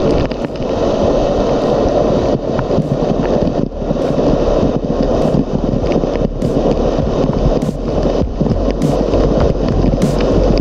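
Waterfall pouring and splashing close to the microphone: a loud, steady rush of falling water, with sharp spatters of drops every second or so.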